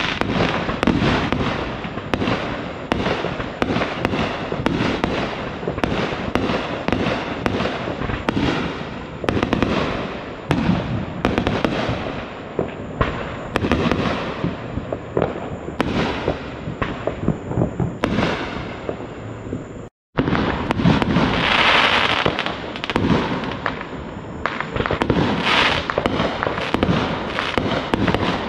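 Backyard consumer aerial fireworks going off in rapid succession: a dense run of bangs and crackling, with a brief dropout about two thirds of the way through.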